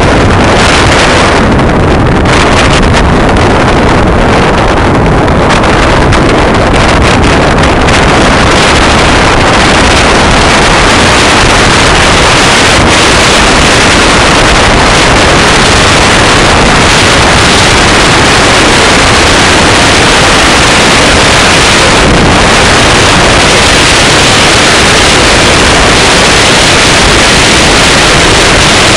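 Loud, steady rush of wind over the microphone of a camera carried on a mountain bike speeding downhill over snow, with no breaks.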